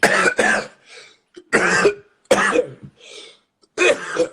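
A man coughing hard several times in a row, about four loud coughs with fainter ones between.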